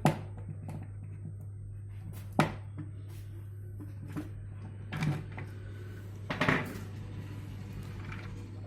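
Handling noise from a large speaker being taken apart: a few separate sharp clicks and knocks, including a double knock about two-thirds of the way through, over a steady low hum.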